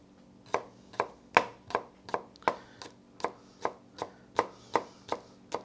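Chef's knife slicing green onions on a plastic cutting board: steady knocks of the blade on the board, about three a second, starting about half a second in.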